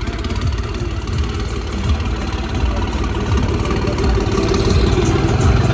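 A New Holland tractor's diesel engine running at low revs as the tractor drives slowly past close by, growing a little louder toward the end.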